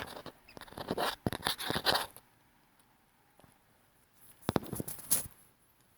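Clicks, rattles and scrapes of a budgie batting a small toy ball about: a busy run of them over the first two seconds, then another short burst about four and a half seconds in.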